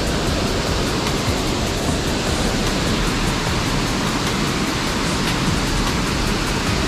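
Steady, unbroken rushing of water pouring through the dam, loud and even throughout.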